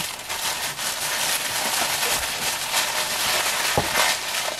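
Tissue paper crinkling and rustling as jewelry is unwrapped from it, a dense crackle of many quick small clicks.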